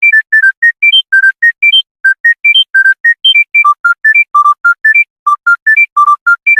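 Mobile phone ringtone: a simple synthesized melody of short, separate notes, about five or six a second, climbing in quick stepwise runs that repeat as a loop.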